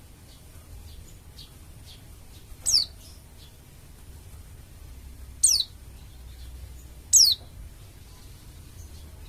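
Pleci dakun bali white-eye calling: three loud, very high, short calls that each fall steeply in pitch, a few seconds apart, with fainter short calls before them.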